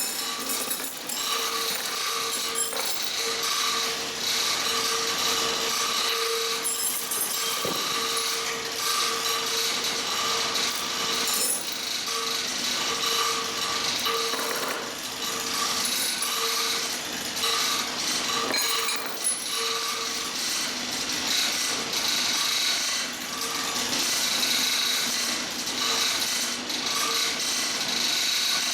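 Hand-operated chain hoist on a manual bridge crane lowering a heavy load, its chain running through the hoist with a steady grinding rub and a squeal that pulses on and off as the load brake lets it down.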